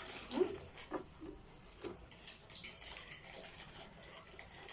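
People eating spicy instant noodles: slurping and chewing, with cutlery clicking against the dishes.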